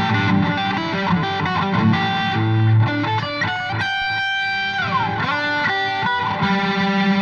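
Electric guitar played through a Vox VT20X modelling amp on an overdriven preset, playing single-note lead lines with bent, held notes and a slide down a little past the middle.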